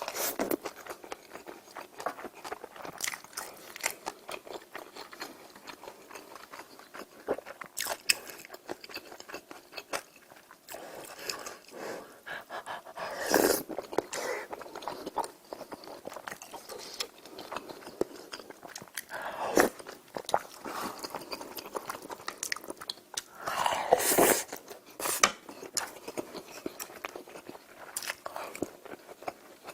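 A person eating close to the microphone: steady chewing with many small wet clicks and smacks, and a few longer, louder sounds about halfway through and again a few seconds apart later on.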